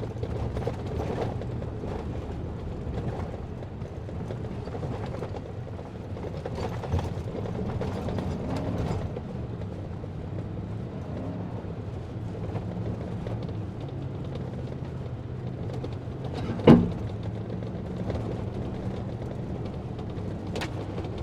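Vehicle driving slowly over a rough dirt two-track: a steady low engine hum with creaks and rattles throughout, and one sharp knock about three-quarters of the way through.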